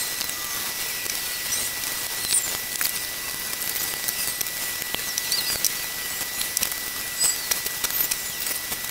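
Paint brushes stroking shellac onto plywood stools: soft scratchy swishing with small ticks and squeaks of the bristles on the wood, over a faint steady high-pitched whine.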